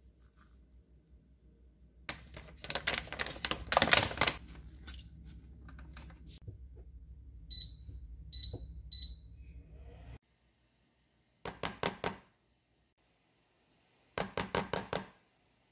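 A loud burst of clattering kitchenware, then three short high beeps from an induction cooktop's touch controls being pressed. Near the end come two short runs of taps and scrapes of a spoon against an earthenware pot.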